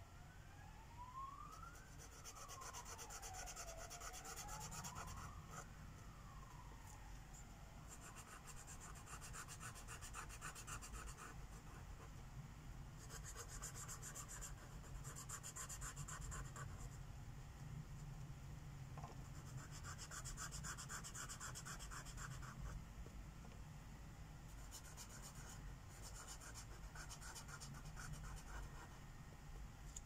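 Sharpie permanent marker scratching over paper in runs of quick back-and-forth colouring strokes, each run lasting a few seconds with short pauses between. A faint siren wails up and down over the first several seconds.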